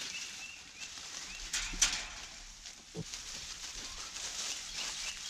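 Scattered rustling and knocks, the loudest a sharp knock a little under two seconds in, with faint bird chirps in the background.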